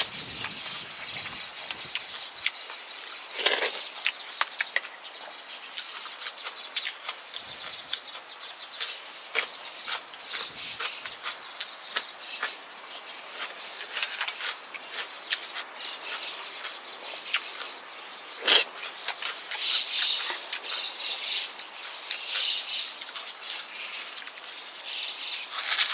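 Close-miked eating of kimchi stew and rice: wet chewing and lip smacking as a steady run of small crackles and clicks, with chopsticks tapping the pot and bowl. A few louder sharp sounds stand out, one a few seconds in and one past the middle.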